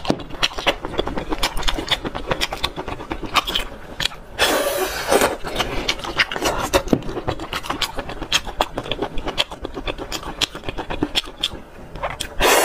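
Close-miked wet sucking and slurping of spicy braised snails from their shells, with quick clicks of shell and lips, plus one longer, louder slurp about four seconds in.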